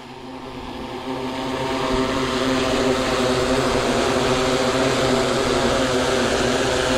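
SwellPro FD2 Fisherman Max quadcopter hovering close by, its propellers giving a steady, multi-toned buzz that grows louder over the first two seconds and then holds level.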